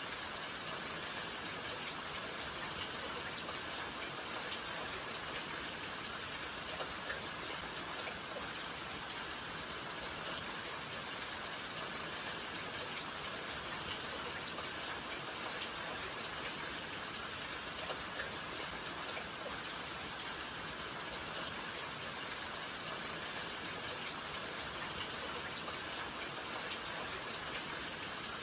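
Steady rain falling, an even hiss with many small drop taps scattered through it.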